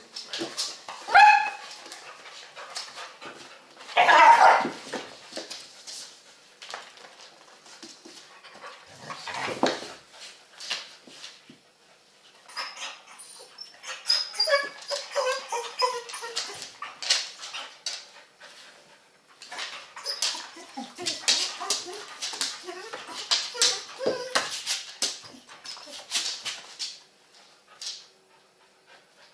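Two dogs play-fighting: a short high yelp about a second in, a loud bark-like outburst around four seconds in, and whimpering cries in the middle, over frequent scuffling and clicking of paws on the bed and floor.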